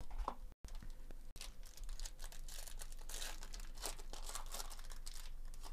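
Foil wrapper of a Topps Chrome baseball card pack being torn open and crinkled by hand: a few sharp clicks, then about four seconds of continuous crackling.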